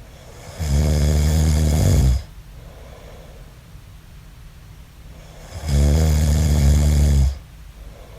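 A man snoring in his sleep: two loud, low-pitched snores about five seconds apart, each lasting about a second and a half, with a soft breath between them.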